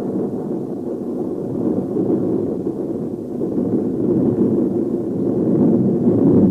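Craftsman zero-turn riding mower running: a steady low rumble that swells and eases slightly.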